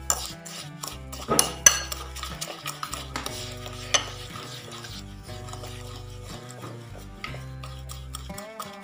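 A metal fork whisking eggs and sugar in a glass bowl, with rapid clicking and scraping against the glass and a few louder clinks, the loudest in the first four seconds. Background music plays underneath.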